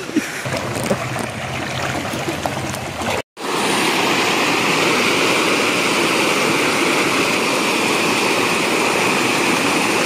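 Stream water rushing over boulders in a small rocky cascade: fainter at first, then loud and steady after the sound cuts out for an instant a little over three seconds in.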